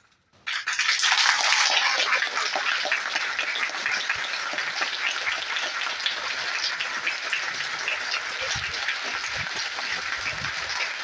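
Audience applause in a hall: clapping breaks out about half a second in, strongest at first, then settles into steady, even clapping.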